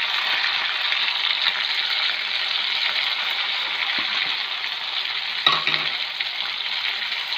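Chicken pieces sizzling steadily in hot oil in a pan as chopped tomato is added and stirred in with a wooden spatula.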